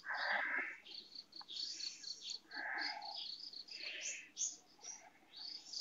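Insect chirping faintly in the background, a steady train of short high pulses about five a second, with soft rustling of a hand rubbing a kitten's fur.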